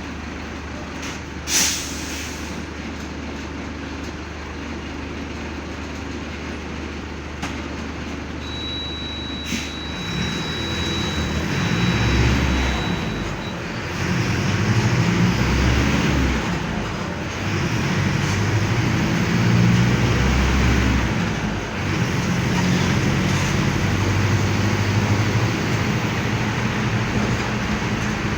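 Mercedes-Benz OF-1519 Bluetec 5 bus's diesel engine, idling steadily and then pulling away and accelerating, its pitch rising and dropping in steps through the gear changes. A sharp click sounds near the start, and a high steady beep lasts about five seconds just before the bus moves off.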